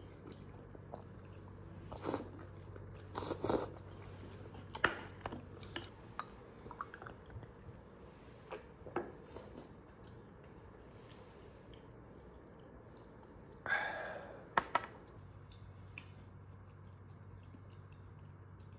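Eating sounds: chewing with scattered short clicks and taps of tableware, and one longer, louder noise about fourteen seconds in.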